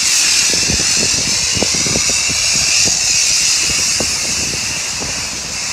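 High-pressure wash wand spraying a jet of water onto a foam-covered car: a steady, loud hiss with scattered small knocks.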